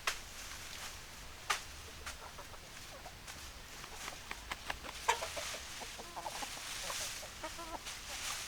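Hens clucking in short, quick calls that come thick from about four seconds in, with two sharp clicks in the first couple of seconds.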